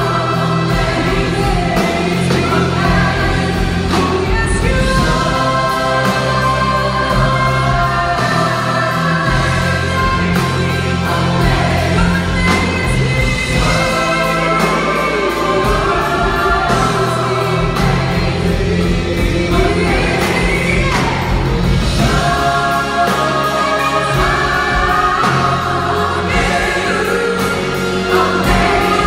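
A large mixed choir with microphoned soloists singing a contemporary gospel song, accompanied by a live band with piano and drums and sustained low bass notes under the voices.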